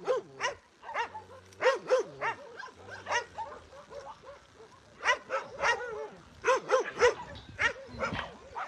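Dogs barking repeatedly, short sharp barks in irregular runs, with several quick volleys around the middle and near the end.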